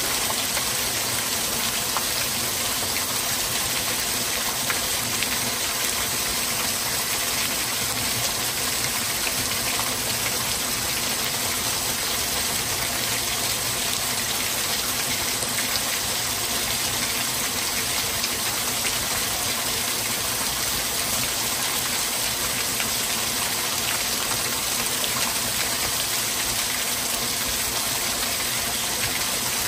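Copperas Falls, a thin waterfall, pouring steadily onto flat rock and a shallow pool, with water dripping and splashing close by from a rock overhang. A constant, even rush with no change.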